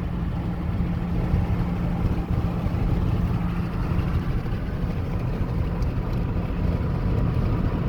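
Steady road and engine noise of a moving car heard from inside the cabin: a low, even rumble with a constant hum.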